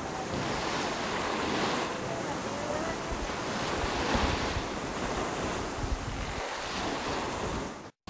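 Wind buffeting the camcorder microphone: a steady rushing noise with uneven low rumbling gusts.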